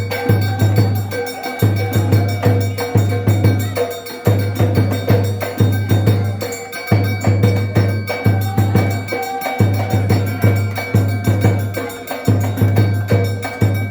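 Ahwash percussion music: frame drums beaten in a fast, steady rhythm, with deep drum beats coming in repeated phrases a couple of seconds long.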